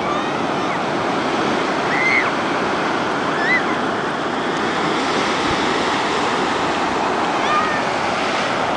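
Ocean surf breaking and washing up a sandy beach: a steady rushing, with a few short, faint high chirps over it.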